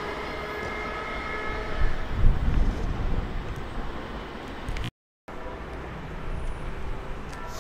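A train running past on the tracks: a whine of a few steady tones dies away over the first two seconds, leaving a low, uneven rumble that swells loudest around two to three seconds in. The sound drops out completely for a moment just before five seconds, then a lower steady rumble carries on.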